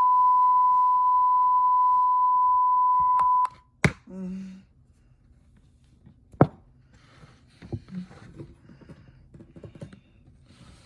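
A steady, high electronic tone holds one pitch and cuts off suddenly about three and a half seconds in. It is followed by a sharp click, a short low buzz, another click, and faint scattered clicks and handling noises.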